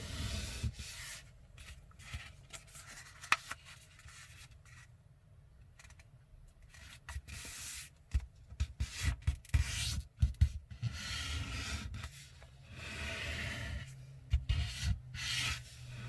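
A sheet of printer paper being folded by hand: rustling and crinkling, with fingers rubbing along the fold to crease it flat. The sound comes in uneven strokes and short crackles, sparse in the middle and busier near the end.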